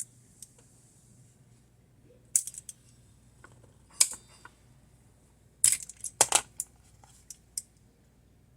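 Sharp metallic clicks and clinks of a hand tool working on a laptop screen hinge as it is clamped down, coming singly and then in a quick cluster of several.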